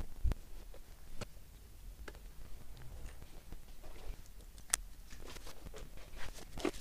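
Scattered light clicks and knocks from handling a folding bicycle and its parts, with a dull thump shortly after the start and a single sharp click just before five seconds in.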